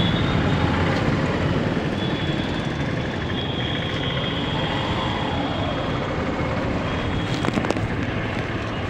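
Busy street traffic: a steady rumble of vehicles going by, with a high steady tone held for a few seconds in the middle and a few sharp clicks near the end.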